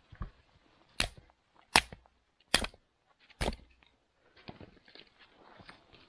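Firewood being worked: four sharp, loud wooden cracks, about one every 0.8 s, followed by softer small knocks and rustling of wood.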